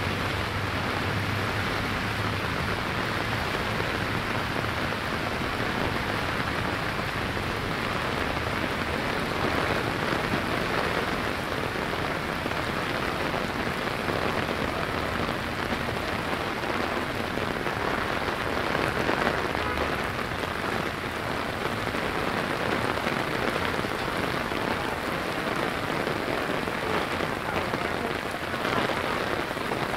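Heavy rain pouring down, a steady even hiss of falling water.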